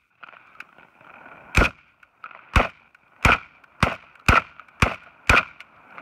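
Saiga 12 semi-automatic 12-gauge shotgun firing seven shots in quick succession, alternating 2¾-inch #7½ birdshot and buckshot: the first two about a second apart, the rest about half a second apart. It cycles each mixed load without a stoppage on gas setting 2.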